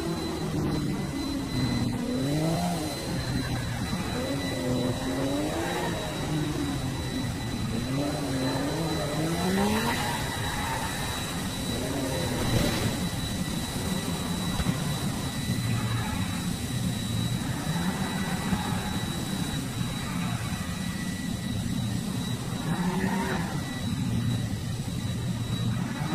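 Engine-like revving noises that rise and fall in pitch, repeating every second or two, over a steady high whine and continuous plastic rattling from toy cars being played with.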